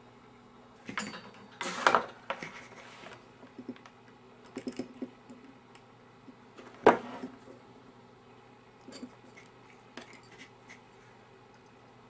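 Handling noises at a workbench: a string of sharp knocks and clatters of small tools and parts being picked up and set down, loudest about two seconds in and again about seven seconds in, with fainter ticks near the end.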